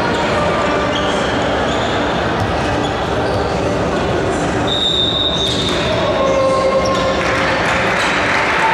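Steady din of voices and shouts in a large sports hall between volleyball rallies, with a short, high whistle blast about five seconds in.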